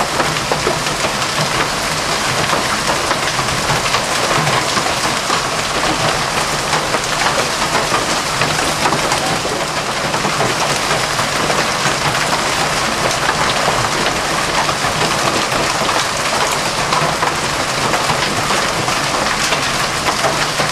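Heavy hail, almost golf-ball size, pelting down in a dense, steady clatter of countless small impacts.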